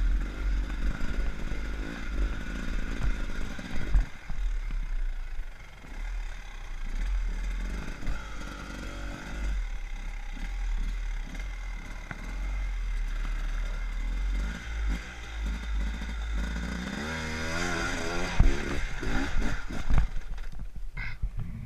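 Enduro dirt bike engine heard from on board, revving up and down as it climbs a rocky trail, over a deep rumble and knocks from the ride. Near the end the revs rise and fall quickly several times.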